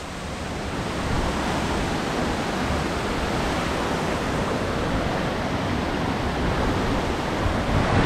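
Shallow stream water flowing steadily over and between rocks, a continuous even rush.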